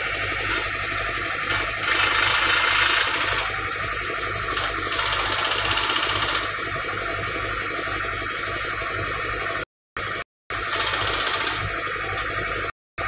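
Crawler excavator's diesel engine idling steadily, with three bursts of hiss-like noise a second or two long over it. The sound cuts out briefly a few times late on.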